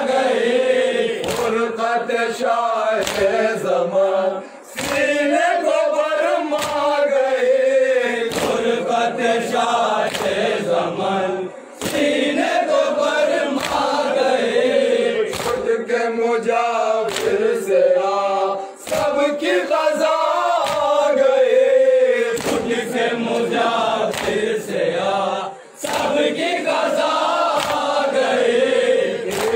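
A group of men chanting an Urdu noha (Shia lamentation) in unison, line by line, with short breaks between lines. Sharp slaps of hands on chests (matam) keep time about once every second or so.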